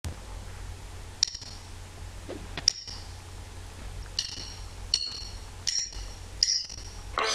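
Short, bright metallic pings, six in all, the last four evenly spaced about three-quarters of a second apart, over a low steady rumble.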